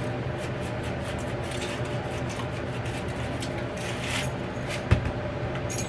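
Dry seasoning shaken from a container onto ribs, a run of faint light rustles, over a steady low electrical hum. A sharp click about five seconds in as the seasoning jar is handled, then light glassy clinks near the end.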